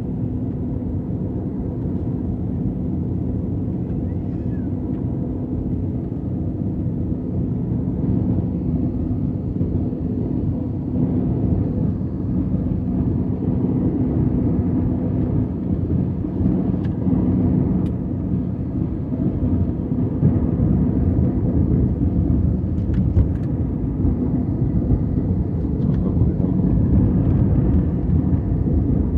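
Jet airliner cabin noise from a window seat during descent: a steady low rumble of the engines and airflow, with a few steady hums, growing a little louder partway through.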